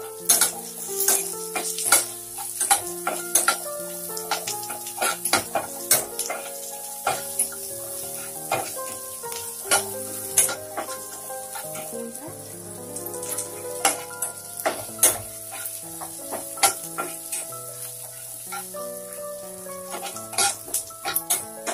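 Chopped onions sizzling in oil in a non-stick kadai, with a spatula stirring them and scraping and tapping against the pan in frequent short clicks.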